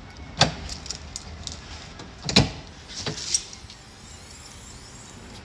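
Land Cruiser power lock actuators clunking as the locks are unlocked: two sharp clunks about two seconds apart, with a few lighter clicks and key jangles. The newly replaced lift gate actuator is working, without the loud noise the cracked old motor made.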